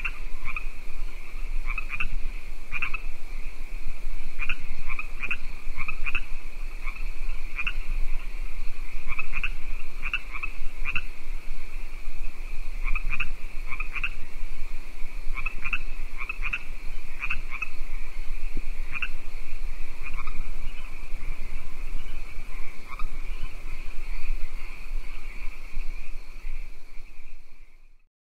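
Frogs calling at night by a lake: a steady high-pitched chorus with many short, repeated calls popping out over it every second or so. It fades out near the end.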